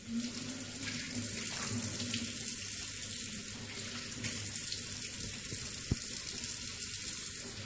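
A kitchen tap running in a steady stream into a stainless steel sink, while a face is rinsed with water cupped in the hands.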